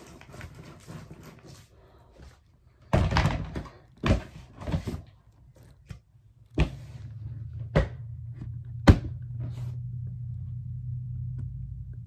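Thumps and knocks of belongings being handled and set into a plastic storage bin: a cluster of heavier bumps about three to five seconds in, then single sharp knocks, the loudest near nine seconds in. From about six and a half seconds in, a low steady hum runs underneath.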